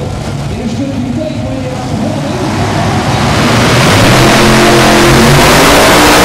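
Four-engine modified pulling tractor with supercharged engines running low, then opening up to full throttle about three seconds in as it starts its pull against the weight sled, becoming very loud and steady.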